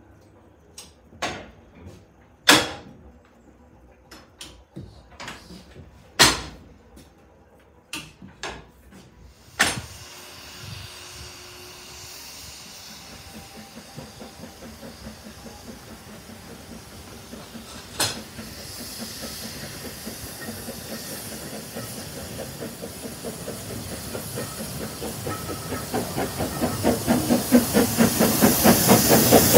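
A few sharp clunks as levers are pulled in a signal-box lever frame. Then a small narrow-gauge steam locomotive comes in, its steam hissing steadily while its rhythmic exhaust beats grow louder as it draws close near the end.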